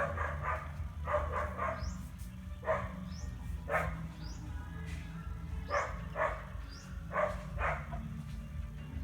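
A dog barking repeatedly in short barks, often two or three close together, over a steady low hum.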